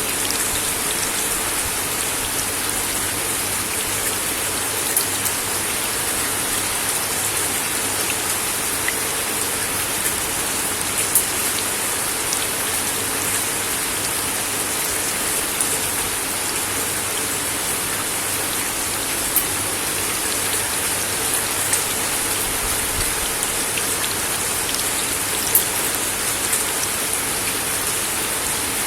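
Steady rain falling on a wooden deck, with individual drops ticking sharply here and there.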